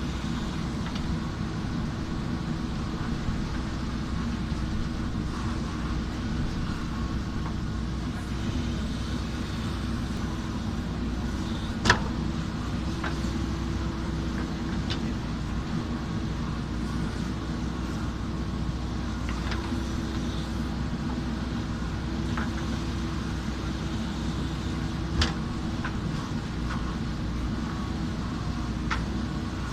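JCB backhoe loader's diesel engine running steadily under work, with occasional sharp knocks. The loudest knock is about twelve seconds in and another comes near twenty-five seconds.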